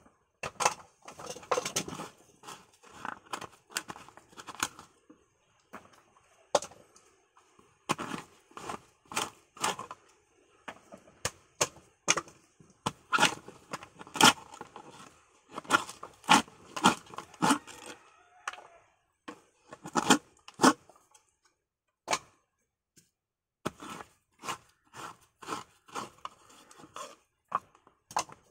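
Coconut meat being pried out of halved coconut shells for copra with a sharp prying tool: irregular sharp cracks and scraping strokes in clusters, with a pause of about two seconds about three-quarters of the way through.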